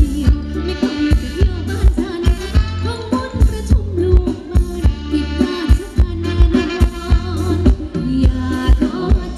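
Live band playing Thai ramwong dance music through a large PA system: a heavy, steady beat of about two kick-drum thumps a second under a melody line.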